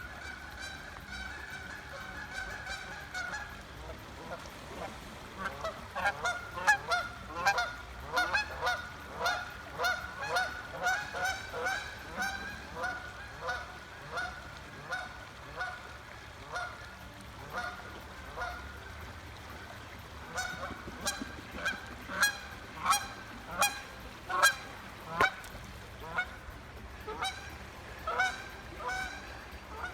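Waterfowl calling over and over, a long series of short calls about two a second that starts a few seconds in and pauses briefly past the midpoint. The steady rush of the creek runs underneath.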